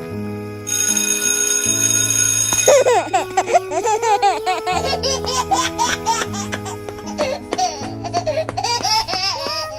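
Background music with held chords, joined a little under three seconds in by a high, baby-like voice laughing over it.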